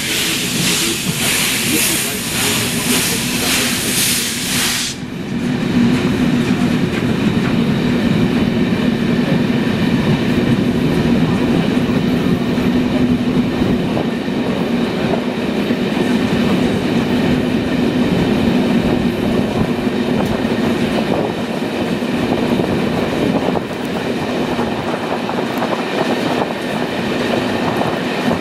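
Passenger train rolling along, heard from an open carriage window: wheels clattering over rail joints under a steady low hum. A loud hiss with a quick pulse fills the first five seconds, then stops abruptly.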